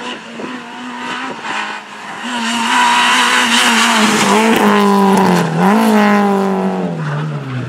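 Renault Clio rally car's engine revving hard as it passes close by, its pitch climbing and dipping several times, then falling away near the end.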